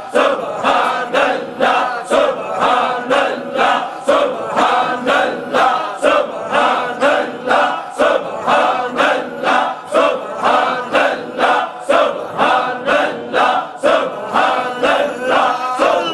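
Group of men chanting dhikr in unison, a short phrase repeated rhythmically about twice a second without a break.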